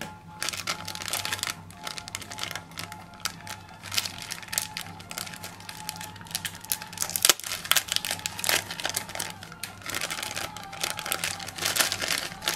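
Clear plastic packaging bag crinkling in irregular, dense crackles as hands handle it and pull it open, over background music.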